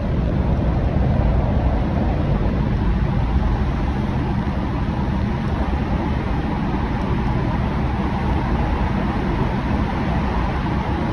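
Steady road and engine noise of a car driving through a road tunnel, heard from inside the cabin: an even low rumble that holds at one level.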